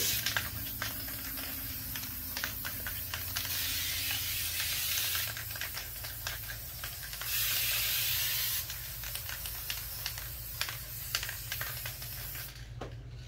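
Aerosol spray paint cans, antique gold and hammered copper, spraying in several long hissing bursts, the loudest one about seven seconds in and lasting over a second, with scattered clicks between them.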